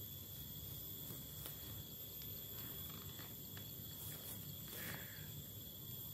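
Faint outdoor ambience: insects trilling steadily at a high pitch over a low background rumble, with a few soft clicks and a brief rustle about five seconds in.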